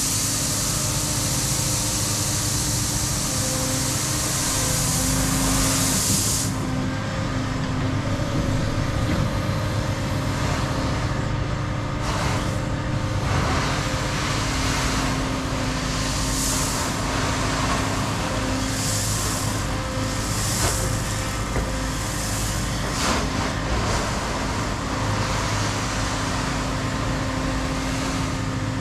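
CAT 335 Next Gen excavator's diesel engine running steadily under working load with hydraulic whine, during backfilling. A loud high hiss cuts off suddenly about six seconds in, and short bursts of noise follow every second or two.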